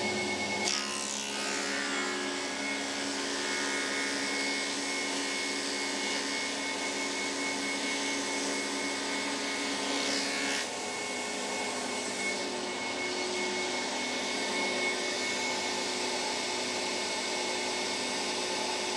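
Charnwood planer-thicknesser running steadily with its drum dust extractor while a birch plywood offcut is fed through it for thicknessing. It is a steady whirring hum with a few fixed tones in it, and the sound shifts slightly a little after ten seconds in.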